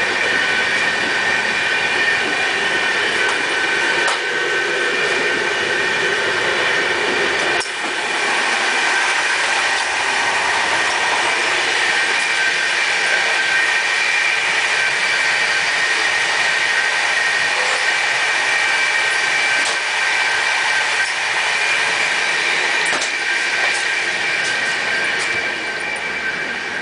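Running noise of a moving passenger train heard from inside its vestibule and coach: a steady rush of wheels on rails with several steady high ringing tones. A single knock sounds about eight seconds in.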